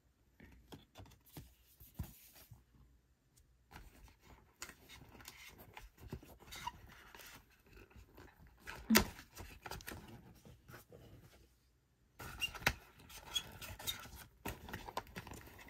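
Hands rummaging through a zippered soft accessory case and its small parts: scattered clicks, scrapes and rustles, with one sharper knock about nine seconds in, while searching for a mounting screw.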